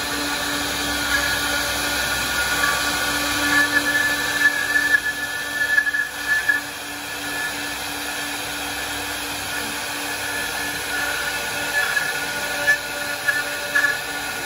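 Spindles of a four-head CNC router with rotary axes carving turning wooden blanks: a steady spindle whine over cutting noise, with louder, uneven bursts of cutting a few seconds in and again near the end.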